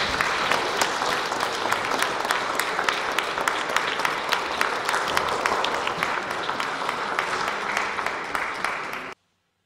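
Audience applauding, many hands clapping together at a steady level; the applause stops abruptly near the end.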